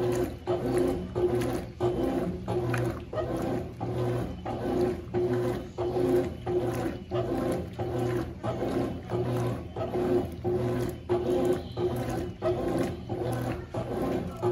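Consul CWS12 12 kg top-loading washing machine agitating: its motor hums and churns the load in short, evenly spaced strokes, a little under two a second.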